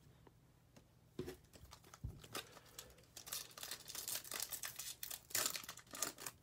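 A Bowman baseball card pack's foil wrapper being torn open and crinkling, the rustle getting busier toward the end. Before that come a couple of soft knocks, about one and two seconds in.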